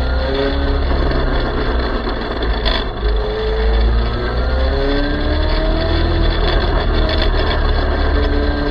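Electric mini motorcycle riding along: the motor's whine rises in pitch several times as it speeds up, over a heavy low rumble.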